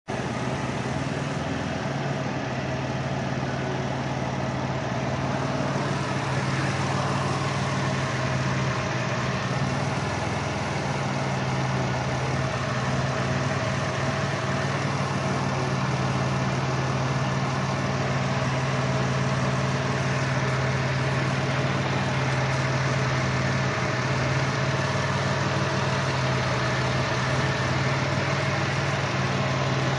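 Caravan minivan engine idling steadily with a cylinder 1 misfire (P0301), caused by an open ignition wire on cylinder number one.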